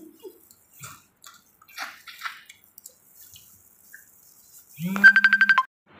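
Wet, sticky eating sounds: sauce-covered seafood being peeled with plastic-gloved hands and chewed, with small scattered smacks and clicks. Near the end, a loud short buzzing tone that pulses rapidly, under a second long.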